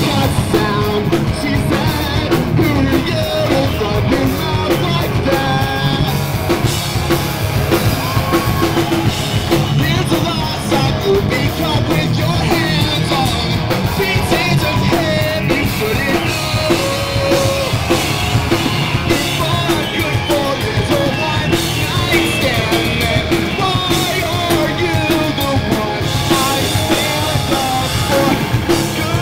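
A rock band playing live: a sung lead vocal over drum kit, bass guitar and electric guitar, loud and unbroken.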